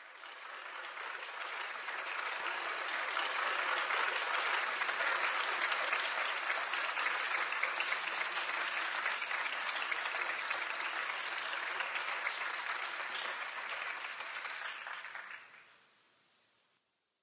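Audience applauding at the end of a piano performance, building over the first few seconds and dying away about fifteen seconds in.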